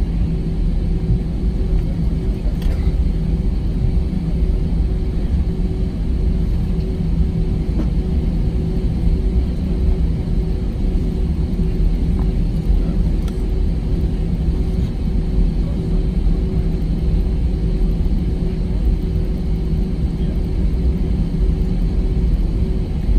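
Airbus A320 cabin noise while taxiing: a steady low rumble from the engines near idle and the airframe rolling, with a constant hum through it.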